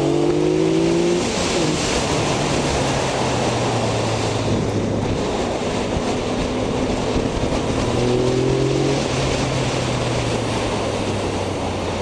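Yamaha XSR900's inline three-cylinder engine pulling hard in third gear. The revs climb for about the first second, settle, then rise again briefly about two-thirds of the way in, over loud wind rush on the rider's microphone.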